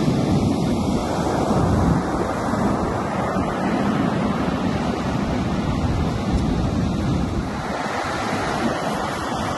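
Shallow surf washing onto a sandy beach, a steady rush of breaking water, with wind buffeting the microphone.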